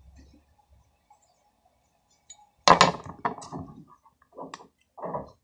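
Tabletop handling sounds of a spoon and small colouring bottles. After a short near-quiet, a sharp clatter comes about two and a half seconds in, then a few softer knocks and clinks.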